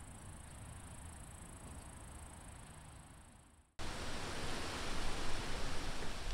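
Steady outdoor noise: a faint hiss with a low rumble that fades almost out, then a sudden jump to a louder, even hiss about four seconds in.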